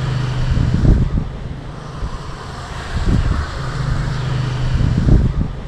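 Wind buffeting the microphone in uneven low thumps, over a low steady hum that fades in and out.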